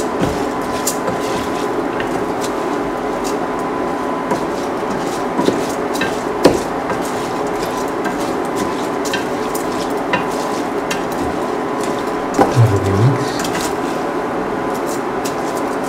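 Rice, tomatoes and ginger being stirred in a steel pan, with the utensil scraping and clicking against the pan over a steady frying sizzle. A brief low thump about three-quarters of the way through.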